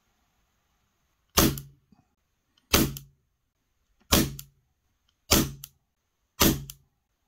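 Crosman 600 semi-automatic CO2 air pistol fired five times in quick succession, about one shot every second and a bit. Each shot is a sharp double crack.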